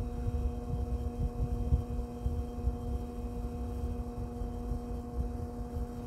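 1960s Arvin model 7414 box fan running, its motor giving a steady hum over an uneven low rumble.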